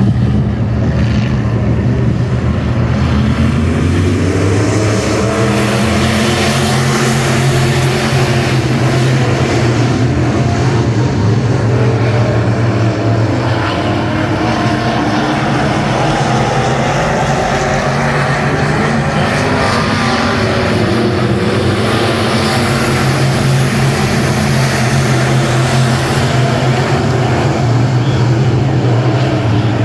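A pack of USRA B-Modified dirt-track race cars running laps, their V8 engines a loud, continuous drone whose pitch rises and falls as the cars accelerate and back off around the oval.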